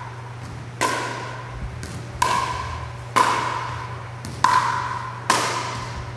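Pickleball paddles striking the ball back and forth in a rally: five sharp pops about a second apart, each ringing out and fading over about a second.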